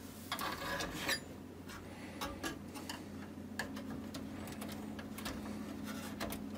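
Light, irregular clicks and taps of a plastic spudger and fingers prying at a stuck cable connector on a vintage computer's motherboard.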